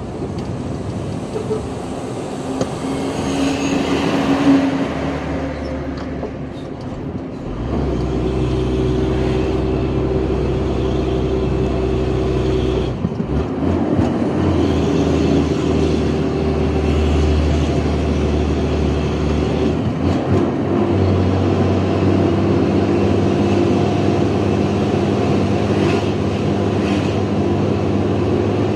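Truck's diesel engine running under way, heard from inside the cab. Its note steps up or down abruptly a few times, about a third of the way in, near the middle and about two-thirds through.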